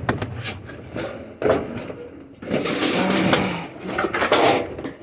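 Scrap being rummaged through and shifted in a container: clattering with light metallic clinks, in several separate bursts.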